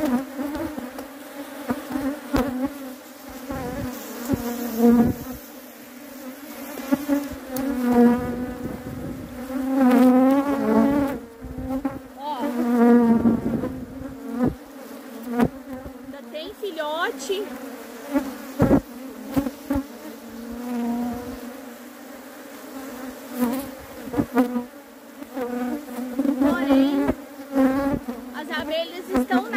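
Many honeybees buzzing in a steady hum, with the pitch of single bees wavering up and down as they fly close past. There are a few short knocks.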